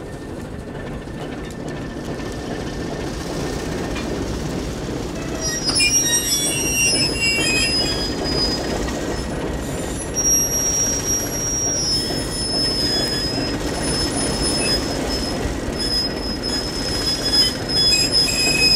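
A train's steel wheels squealing against the rails in thin, high-pitched tones starting about six seconds in, over the low rumble of the moving train. The sound grows louder as the train draws closer.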